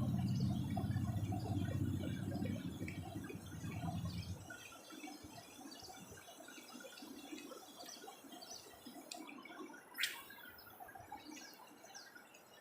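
A low, steady mechanical hum fades out about four seconds in. It leaves quiet outdoor ambience with many faint chirps, and one sharp sound comes about ten seconds in.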